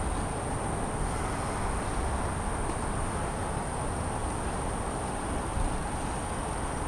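Steady outdoor city ambience: a low rumble of distant road traffic with a constant high-pitched tone above it.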